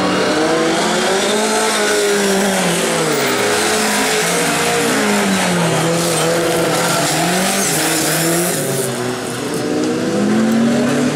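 Several bilcross race cars running together, their engines revving up and falling back over and over as they accelerate and lift off.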